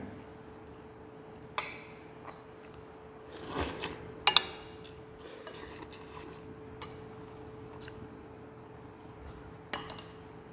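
Metal spoons and a ladle clinking against porcelain bowls and plates while eating: a few sharp clinks, about a second and a half in, around four seconds, and twice near the end, over a faint steady hum.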